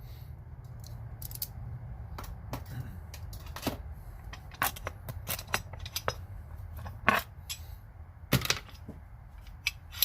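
Irregular clicks and knocks of a steel Swedish-pattern pipe wrench being handled and turned over, with a sharper knock about seven seconds in and another just after eight seconds. A low steady hum runs underneath.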